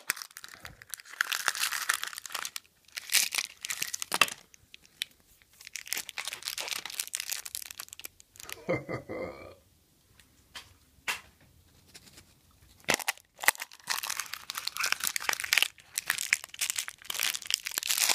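Plastic and cellophane wrapping being torn and crinkled off plastic surprise-egg capsules, in irregular bursts of crackling with short pauses.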